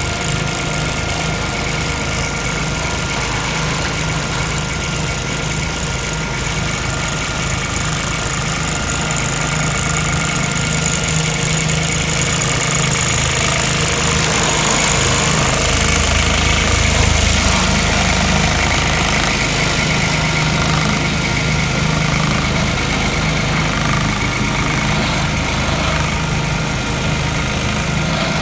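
Ditch Witch RT120 Quad tracked tractor's diesel engine running steadily under load as its plow lays 1-1/4 inch inner duct into the ground, growing a little louder about halfway through.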